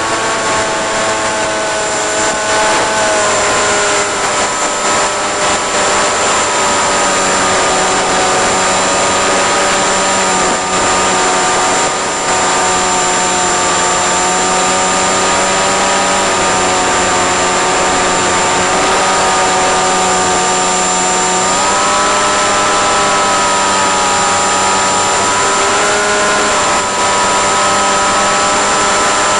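Electric motor and propeller of an FPV flying-wing model plane whining under power over a steady hiss. The pitch drops about three seconds in as the throttle is eased back, and rises again about three-quarters of the way through as power is added.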